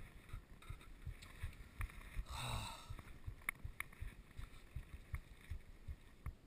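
Faint, irregular low knocks and a few sharp clicks from movement picked up by a mountain biker's action camera, with a brief rush of wind on the microphone about two and a half seconds in.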